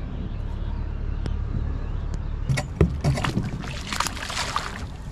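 A steady low rumble. About halfway in come a few sharp knocks and about a second of rushing, rubbing noise as a sailboat's mooring lines are let go at the bow.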